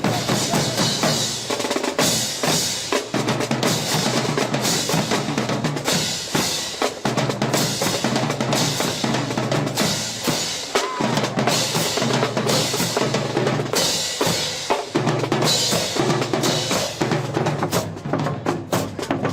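Marching band drumline playing a cadence: snare and bass drums beating a steady driving rhythm, with bright crashes recurring every couple of seconds.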